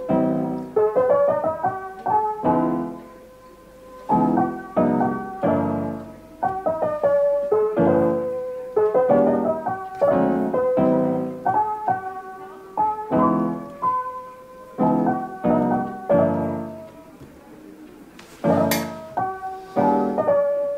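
Background piano music: single notes and chords played at an unhurried pace, with a short bright sound near the end.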